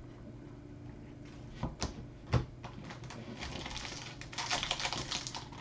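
Trading cards being handled by hand: a few sharp clicks, then a rapid flicking, rustling patter that grows louder in the last second or so.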